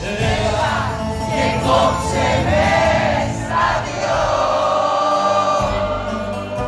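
Live band music with many voices singing along together, like an audience joining in on the song.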